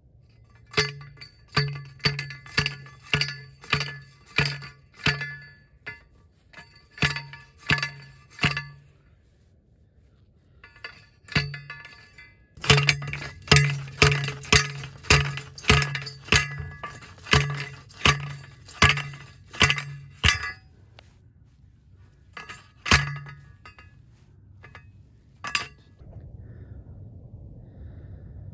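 Manual steel post driver slammed down again and again onto a PVC fence post, driving it into the ground: sharp metallic clanks with a ringing tone, about two a second. Two runs of strikes with a pause of a few seconds between them, then one last strike.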